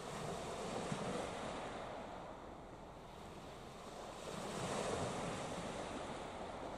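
Small waves breaking and washing up a shingle beach, swelling twice about four seconds apart.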